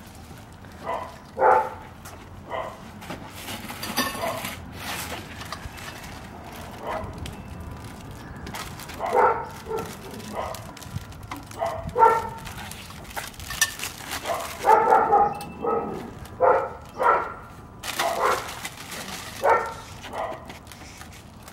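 A dog barking repeatedly in short, irregular barks, with a few sharp clicks among them.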